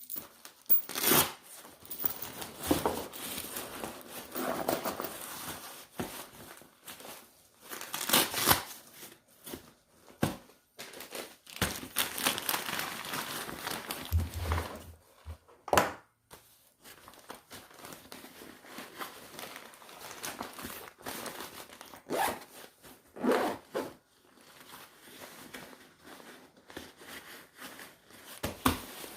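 Gear being handled and packed into a nylon backpack: irregular rustling and crinkling of fabric and packaging, with a few sharp clacks and a dull thump about halfway through.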